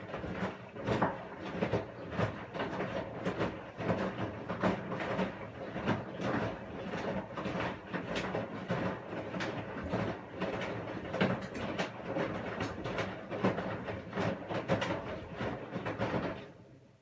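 Washing machine running a wash cycle: a steady churning of the turning drum with frequent irregular knocks and clicks, which cuts off suddenly near the end.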